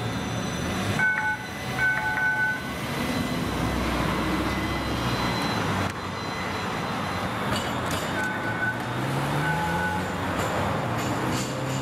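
Electric streetcar and car traffic passing on a city street, a steady traffic noise. Short high toots sound in two pairs, one about a second in and another around eight to ten seconds in, and a low engine note rises near the end as a vehicle pulls away.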